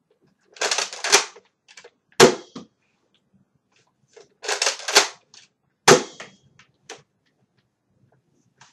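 A Nerf Retaliator pump-action spring blaster primed and fired twice. Each time there is a rasping two-stroke pull and push of the priming slide, then a sharp snap of the shot a second or less later, followed by a fainter click.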